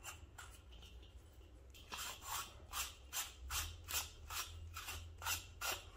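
Ring nut being screwed by hand back onto the threaded lamp socket of a Flos Arco lamp, clamping the dome and its perforated reflector. It gives short rubbing scrapes at about four a second from about two seconds in.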